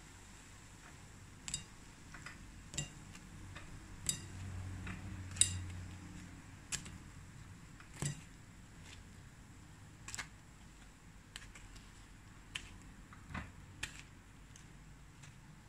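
Irregular sharp clicks and taps, about a dozen, of a wooden skewer knocking against a takoyaki grill pan and a ceramic plate as cooked takoyaki balls are lifted out and set down.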